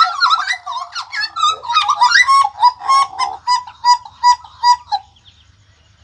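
Caged jagal Papua (butcherbirds) singing a fast run of short, clear whistled and chirping notes, which stops about five seconds in.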